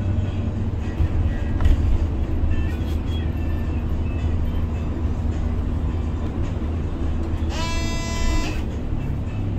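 Steady low engine and road rumble heard from inside a moving city bus, with faint music in the background. About eight seconds in, a single pitched tone sounds for about a second.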